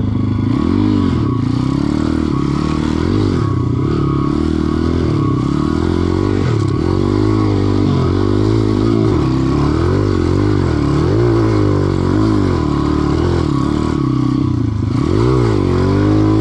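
Dirt bike engine running under way, its pitch rising and falling every second or two as the throttle is opened and rolled off.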